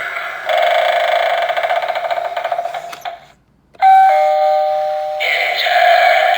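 Novelty Halloween doorbell playing its sound effects through its small speaker. A warbling, fluttering effect breaks off briefly; then a loud steady two-note chime sounds, followed by eerie sounds wavering up and down in pitch.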